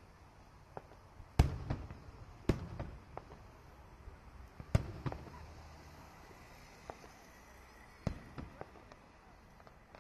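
Aerial fireworks shells bursting: four sharp booms, the loudest about a second and a half in, then others at about two and a half, five and eight seconds, each followed by a few smaller crackling pops.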